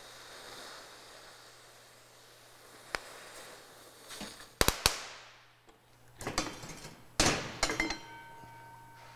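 Oxy-fuel cutting torch hissing steadily as it cuts a circle through steel plate, then two sharp pops about halfway through, after which the hiss dies away. Metal clanks follow, with a ringing of steel in the last few seconds.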